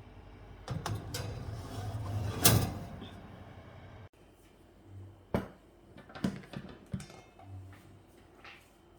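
Kitchen handling noises: a rustling, clattering stretch with clicks that peaks in a sharp knock about two and a half seconds in, then several separate knocks a few seconds later.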